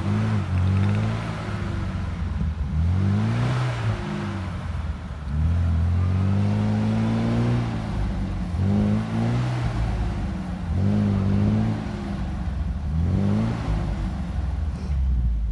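UAZ Patriot's engine revving up and dropping back again and again, about six surges with one longer held rev in the middle, as the vehicle struggles to climb through deep snow.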